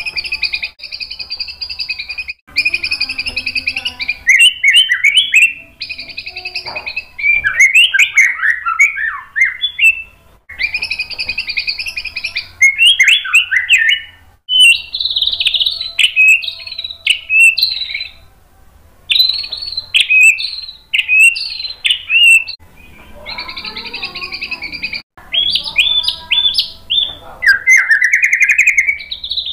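Male white-rumped shama (murai batu) in full song, giving varied phrases with short pauses between them: fast rattling runs of repeated notes alternating with quick swooping whistled notes, and a rising note near the end.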